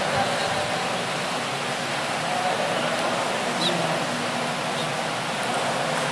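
Steady, even hiss of noise, with faint low steady tones behind it.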